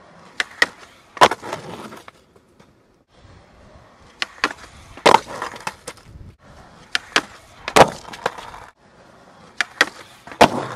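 Skateboard deck and trucks clacking against a concrete ledge and the ground in repeated trick attempts: four bursts of sharp clacks about every 2.5 to 3 seconds, each made of two or three quick hits followed by a short scrape or roll.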